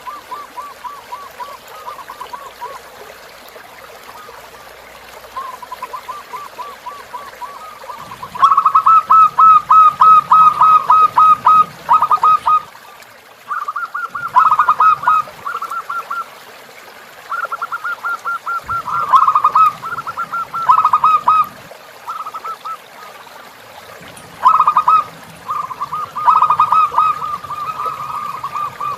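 Zebra dove (perkutut) cooing in bouts of rapid, repeated staccato notes, several phrases in a row, the loudest about eight seconds in. Under it runs the faint steady sound of a flowing river.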